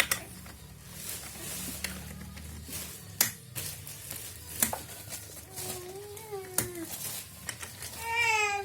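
A baby vocalizing twice, first a wavering coo in the middle and then a short high squeal near the end, among scattered sharp knocks. A low steady hum runs underneath.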